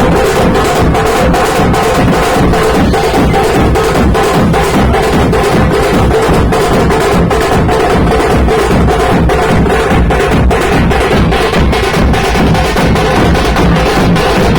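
Loud percussion music: fast, evenly spaced drum strokes over a steady held tone.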